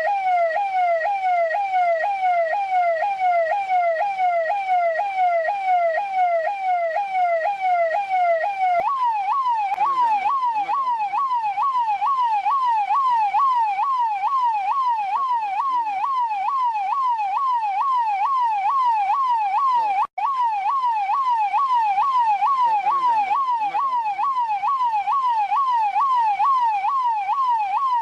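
Indian police siren wailing in a fast yelp, its pitch sweeping up and down about three times a second. About nine seconds in it jumps to a higher pitch and carries on at the same pace, with a split-second dropout about twenty seconds in.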